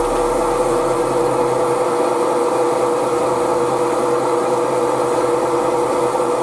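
Metal lathe running steadily with a constant whine, while abrasive cloth rubs against the brass hammer handle spinning in its chuck, polishing it.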